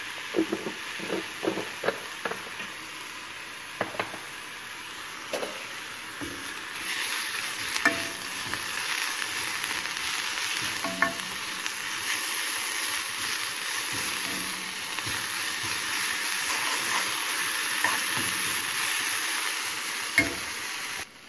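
Ridge gourd peels frying in a kadai with a steady sizzle, stirred with a steel spoon that scrapes and knocks against the pan now and then. The sizzle grows louder about seven seconds in.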